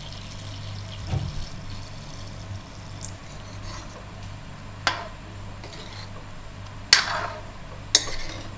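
Water pouring from above into a kadhai of thick masala gravy with koftas. Then a metal ladle stirs and clanks sharply against the pan three times.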